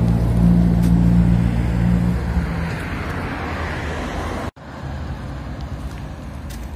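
Road traffic: a motor vehicle's engine hums steadily close by, then a car passes with a swelling rush of noise. About two-thirds of the way in there is a sudden cut, and after it quieter, steady traffic noise goes on.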